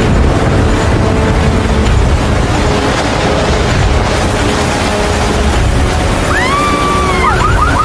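Violent storm wind blowing loud and steady, buffeting the microphone with heavy low rumble. Near the end a car alarm goes off, a wailing tone that sweeps up and down, followed by rapid chirps.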